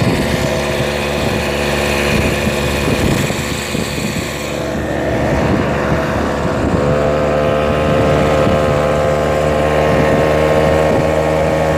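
A vehicle's engine runs steadily while it drives along, with wind noise on the microphone. The hiss eases about halfway through, and from about seven seconds in the engine note holds steady and stands out more clearly.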